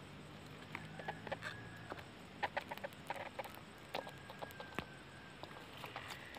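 A bird calling: scattered short clucks and clicks, with two brief thin held notes, one about a second and a half in and a longer one about four seconds in.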